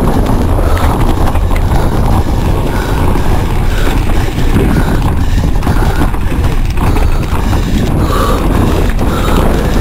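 Bicycle rolling fast over a rough trail, a steady loud rumble with rattling from the bike.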